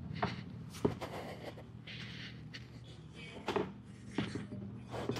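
Scooter engine idling, a low steady hum, under scattered clicks and rustling from handling.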